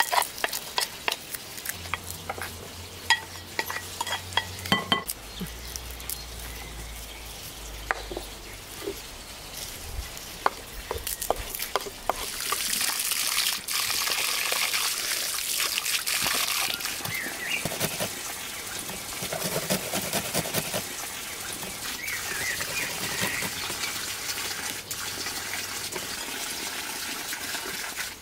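Food being prepared by hand: a spoon taps against a glass bowl several times, chopped fresh greens are scraped off a wooden cutting board into the bowl with a rustling hiss, then hands squish and stir the moist buckwheat cutlet mixture.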